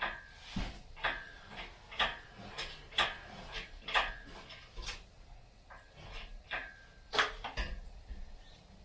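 Sealey PH5 engine crane being worked under the weight of a lifted engine: a run of sharp metallic clanks about once a second, several with a brief metallic ring after them, typical of strokes on the crane's hydraulic pump handle.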